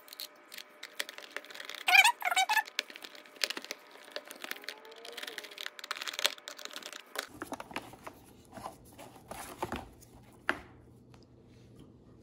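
Screws being driven by hand into the plastic bottom cover of an electric pencil sharpener: small clicks and taps, with a short squeak about two seconds in, the loudest moment. A few knocks in the second half as the sharpener is handled.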